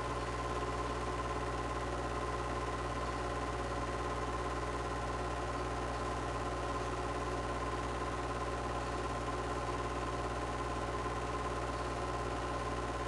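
Super 8 film projector running: a steady mechanical hum with a constant tone, unchanging throughout.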